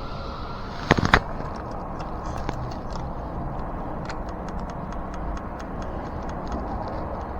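Metal spokes of a bicycle wheel clicking against the hub and rim as a replacement spoke is worked in by hand: two sharp metallic clicks about a second in, then a run of faint light ticks. The spoke is jammed on the rim.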